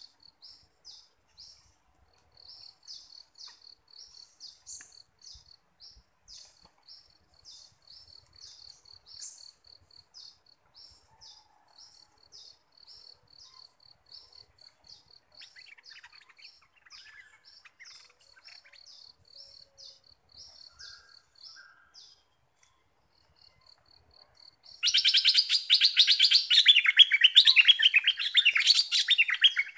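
A bulbul sings loudly near the end, a rapid chattering run of many notes falling in pitch. Before it, an insect chirps faintly and steadily, about three to four short high pulses a second.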